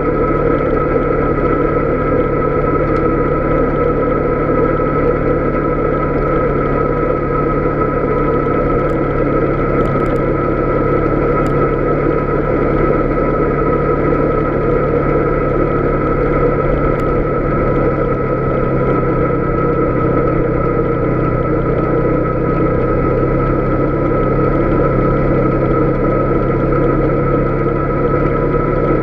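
Polaris Sportsman 570 ATV's single-cylinder engine running steadily while cruising over a gravel road, with a steady whine above the engine note. Its pitch eases down a little partway through.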